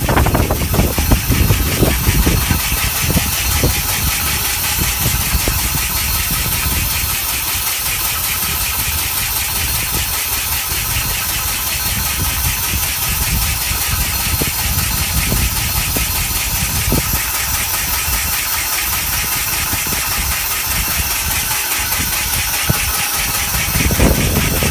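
1890s Sullivan Model H diamond core drill running steadily on compressed air instead of its original steam: a rapid, even mechanical beat under a constant hiss.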